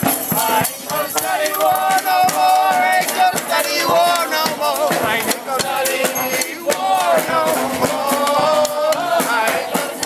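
Marching street band playing as it walks: saxophone and brass horns carry a wavering melody over busy rattling percussion.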